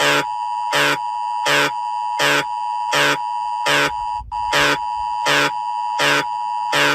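Electronic emergency alert signal: a steady two-note tone near 1 kHz with a harsh buzzing pulse repeating about every three-quarters of a second. The steady tone drops out for an instant about four seconds in.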